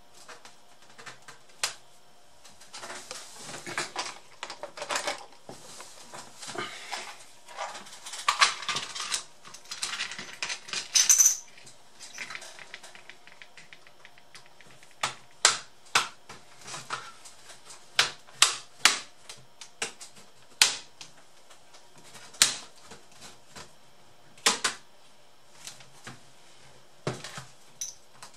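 Plastic casing of an ASUS K53S laptop being pried apart with a plastic pry tool: several seconds of scraping and rubbing, then a run of sharp separate clicks as the case's clips let go.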